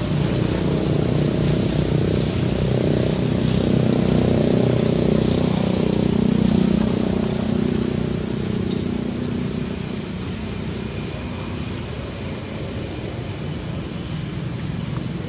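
Engine of a passing motor vehicle, a steady hum that grows louder toward the middle and then fades away.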